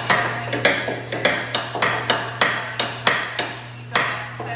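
Hammer blows on metal, a quick, fairly even run of sharp strikes about three a second, each ringing briefly, over a steady low hum.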